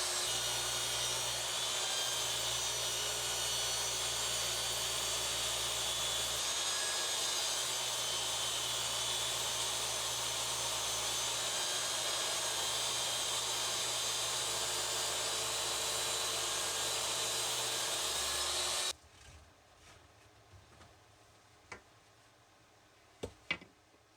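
Woodworking power tool running steadily while machining wood, with a faint high whine. It cuts off suddenly about 19 seconds in, leaving a few light knocks.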